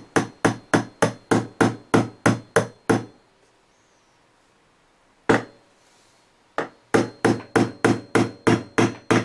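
Small hammer tapping on metal, driving the spline key back into the La Gard 3330 combination lock's drive cam to take out its play. Two runs of quick, even taps, about three a second, with a single tap between them.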